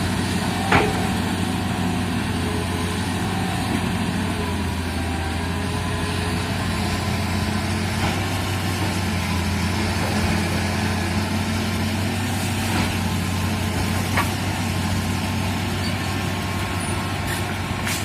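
Excavator's diesel engine running steadily, with a few sharp knocks, the loudest about a second in.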